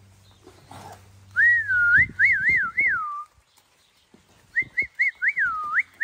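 A person whistling to drive calves along, in two runs of swooping up-and-down notes: the first about a second in, the second from about halfway on. A few short dull knocks sound underneath.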